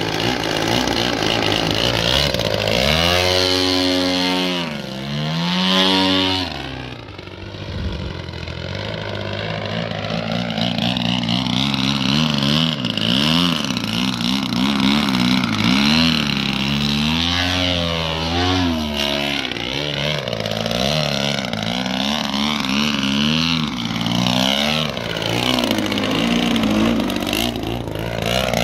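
Engine and propeller of a radio-controlled 3D aerobatic plane, revving up and down with the throttle through low manoeuvres. The pitch rises and falls repeatedly, with a sharp swooping rise and fall a few seconds in as it passes close.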